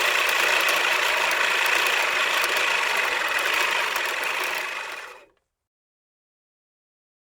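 Lawn mower engine running steadily, then fading out about five seconds in.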